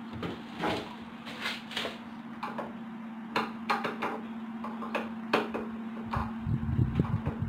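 Irregular light clicks and knocks, like objects being handled, over a steady low hum, with a cluster of heavier low knocks and rumbling about six seconds in.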